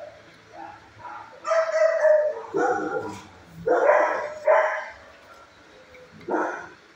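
A dog barking, about five loud barks spread over several seconds.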